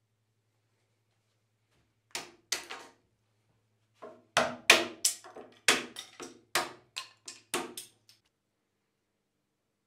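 Wooden mallet knocking on an ash dresser carcass, driving a protruding piece at the top edge down flush. Three knocks, then a quick run of about a dozen from about four seconds in.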